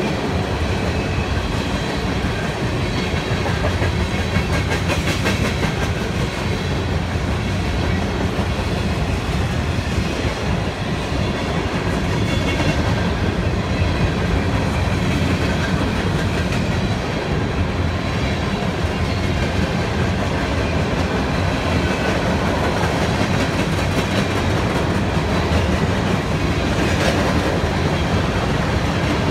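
Freight cars of a long, fast freight train (covered hoppers and tank cars) rolling past: a steady rumble of steel wheels on rail, with wheels clicking over the rail joints now and then.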